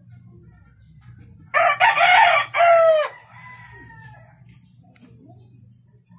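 A rooster crowing once, about a second and a half in, a loud call of about a second and a half that ends in a falling, drawn-out tail.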